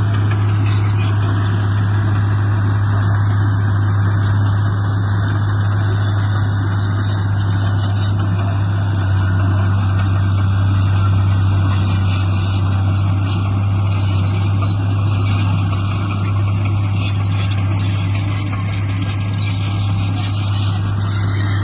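Heavy diesel engine of earthmoving equipment running steadily, with a deep, constant hum.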